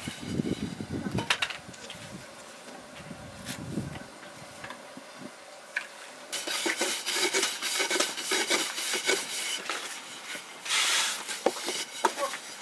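Flies buzzing. Then, from about six seconds in, a long thin wooden rolling pin rubs and knocks over dough on a flour-dusted wooden board, with a few sharp taps near the end.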